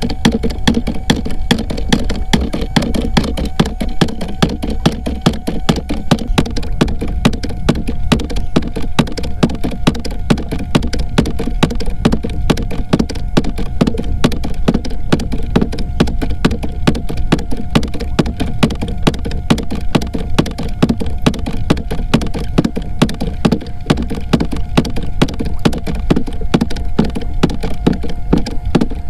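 Homemade scrap-aluminum fish thumper running: a fast, even stream of sharp knocks over a steady hum. The thumping is meant to draw white bass in around the boat.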